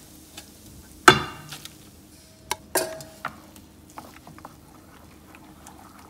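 Metal spoon clinking against stainless steel bowls as blended corn is scraped into batter, then stirring in the batter. There is a sharp clink about a second in and two more clinks with a brief metallic ring just before the three-second mark, followed by soft stirring ticks.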